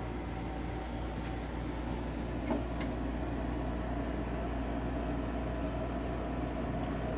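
A steady low mechanical hum, like a fan or air handler running, with a few faint clicks about a second and two to three seconds in.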